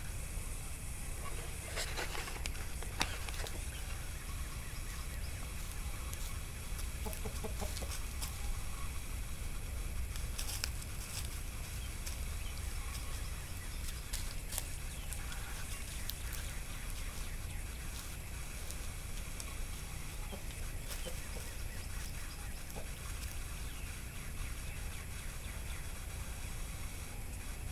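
Rooster clucking a few times, with scattered short clicks over a steady low rumble.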